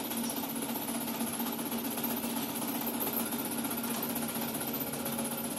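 Steady, rapid mechanical rattle of workshop machinery running, with a constant low hum.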